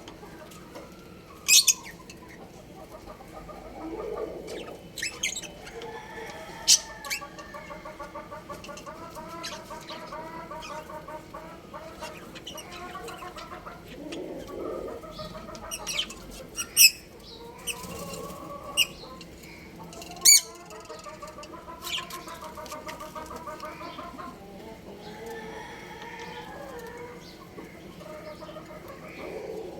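Budgerigars calling: sharp high chirps stand out about half a dozen times over a long, wavering chatter.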